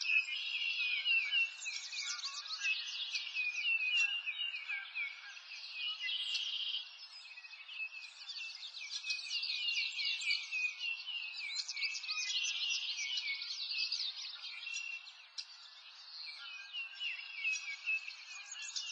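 A dense chorus of small birds chirping, many short, quick, high-pitched calls overlapping, thinning briefly about three-quarters of the way through.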